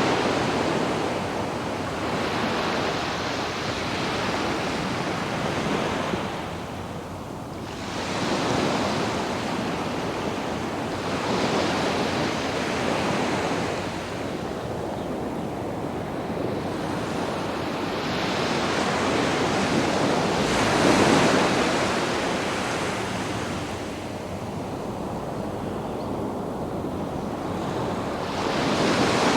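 Sea waves breaking and washing up on a sandy beach, the surf swelling and ebbing every few seconds, with one larger wave breaking about two-thirds of the way through. Light wind buffets the microphone.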